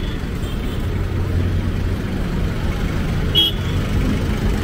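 Steady low rumble of road traffic on a highway, with a brief high chirp about three and a half seconds in.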